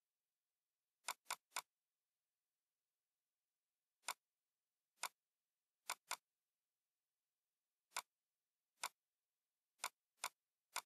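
Computer mouse clicking, about a dozen sharp single clicks at an irregular pace, some in quick pairs and a run of three, with silence in between.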